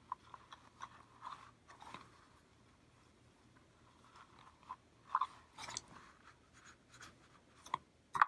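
Faint rustling and small scattered clicks of fingers tying a knot in a thin elastic cord against a leather notebook cover, with one sharper click near the end.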